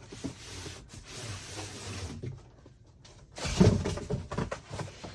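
Cardboard packaging being handled: about two seconds of rustling and scraping, then a loud thud with a few knocks about three and a half seconds in, as pieces of the box are moved and set down.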